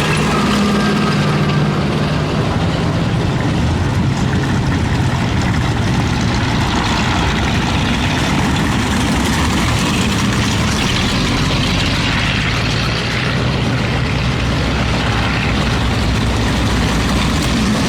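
Universal Carriers' Ford V8 engines running steadily in a passing convoy, with the clatter of steel tracks on gravel.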